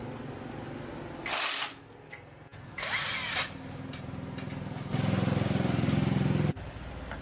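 A small engine running steadily, with two short hissing bursts and a louder stretch of running that starts and stops abruptly about two-thirds of the way through.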